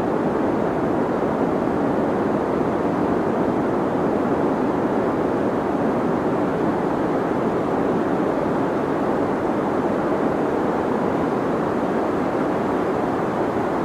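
Deep white noise: a steady, unbroken muffled hiss, weighted toward the lower pitches, with little sharp top and no change in level.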